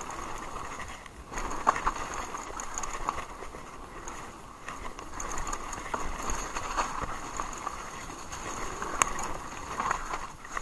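Haibike Sduro electric mountain bike descending a leaf-covered dirt trail at speed: tyres rolling over leaves and dirt, with the bike rattling over bumps and sharp knocks, the loudest about two seconds in and another near nine seconds.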